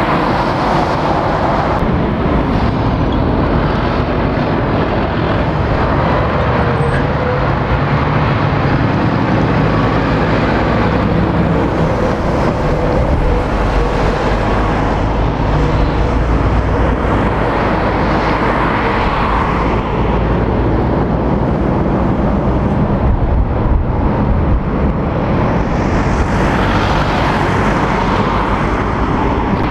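Road traffic passing at a roundabout. An articulated diesel lorry goes by close at first, then cars and lorries pass one after another, with engine and tyre noise swelling and fading as each goes by.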